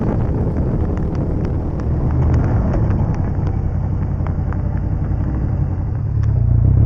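Motorcycle riding, heard through a bike-mounted camera: engine running under a rush of wind, with scattered sharp ticks. Near the end the engine settles into a steadier, slightly louder low note as the bike slows and pulls off the road onto gravel.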